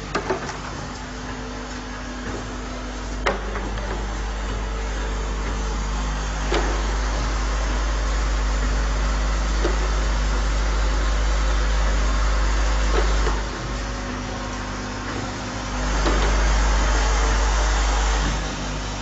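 Automatic screwdriving assembly machine for electrical wire boxes running: a steady mechanical hum with a sharp click about every three seconds. The hum grows louder for a couple of seconds near the end.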